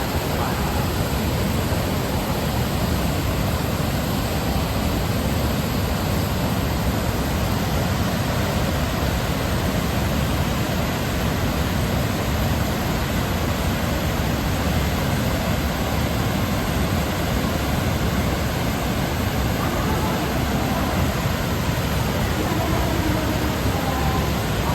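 Waterfall and river water of the Katashina Gorge rushing steadily: a loud, unbroken wash of water noise.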